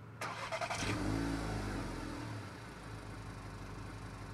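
Volkswagen Scirocco R's turbocharged four-cylinder engine starting, heard at the twin exhaust tips: it fires about a quarter second in, flares up in revs, and the pitch falls as it settles into a steady idle.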